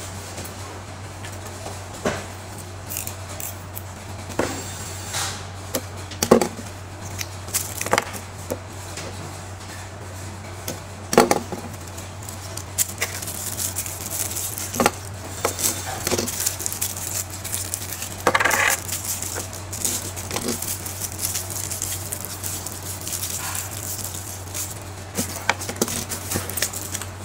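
Small cardboard bearing boxes and a plastic wrapper handled on a workbench as a new ball bearing is unpacked: scattered clicks and light taps, with a short crinkling rustle of plastic just over halfway through. A steady low hum runs underneath.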